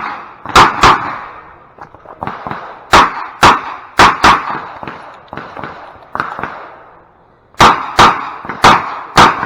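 Revolver shots fired rapidly in a USPSA stage run, about ten sharp reports in quick pairs and singles. There is a pause of about three seconds in the middle, with only fainter cracks, before the firing resumes.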